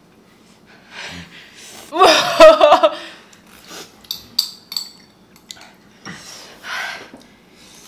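Sounds of two people eating noodles at a table: a loud, pulsing vocal outburst about two seconds in, then a few light clicks of chopsticks against ceramic bowls and breathy noises.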